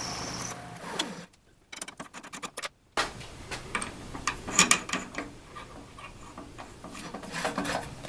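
CNC router spindle running steadily with an end mill in aluminum, then cutting off about a second in. After that come small metallic clicks and scratchy rubbing as aluminum chips are brushed and picked off the aluminum plate.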